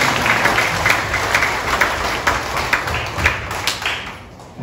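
Congregation applauding, many hands clapping, the applause dying away near the end.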